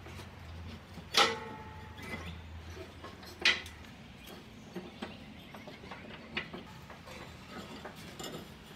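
Rubber deck belt being worked off the steel pulleys of a Craftsman riding-mower deck by hand: two sharp metallic clacks about two seconds apart, each with brief ringing, then a few lighter ticks and knocks.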